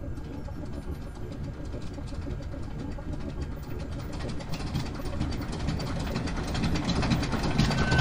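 Rapid clicking and crackling over a low hum, growing steadily louder: a home-built microwave-oven time machine powering up.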